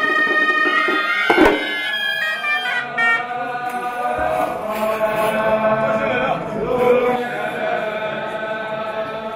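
Moroccan ghaita (rhaita) shawms playing a loud reedy tune for the first second and a half, cut off abruptly. After the cut a man leads a sustained religious chant, with other voices joining.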